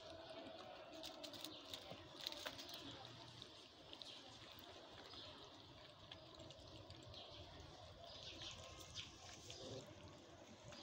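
Faint, wet smacking and chewing of several kittens eating soft, moist food from paper plates, with scattered small clicks.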